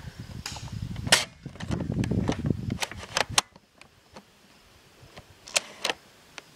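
Airsoft gun shots: about six sharp single pops at irregular intervals, with a low rumbling noise under the first half that stops about three seconds in.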